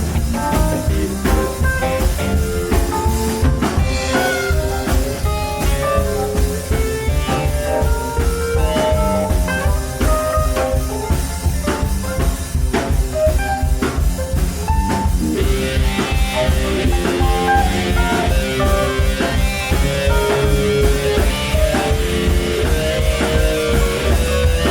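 Live rock band playing an instrumental passage with no vocals: electric guitar lines over bass and a drum kit keeping a steady beat. About fifteen seconds in, the upper range of the sound gets fuller.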